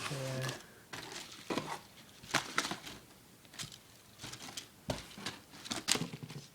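Firework packages being handled and moved around: crinkling plastic wrap and cardboard with scattered clicks and knocks. There is a brief vocal sound at the start.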